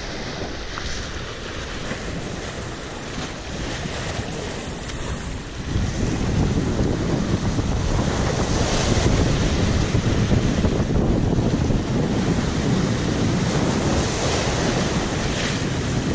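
Wind buffeting the microphone over the steady wash of surf, getting louder about six seconds in.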